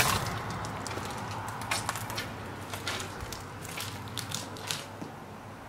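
Footsteps crunching over broken glass and debris: a string of irregular crunches and clicks.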